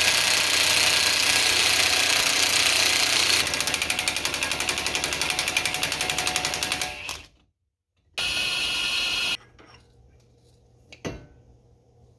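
Cordless 24-volt impact wrench driving the forcing screw of a wheel-bearing puller, pulling the front wheel bearing out of the steering knuckle. It spins at first, then goes into rapid hammering for about three and a half seconds before stopping. After a short pause it runs briefly once more, and there is a single click near the end.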